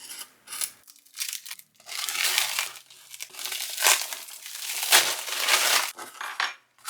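Product packaging being handled and torn open: irregular crinkling and tearing rustles with a few sharp clicks, heaviest in the middle of the stretch.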